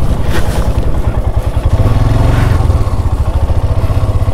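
Motorcycle engine running at low speed, heard from the rider's seat: an even, rapid low pulsing from the exhaust, which swells a little in the middle.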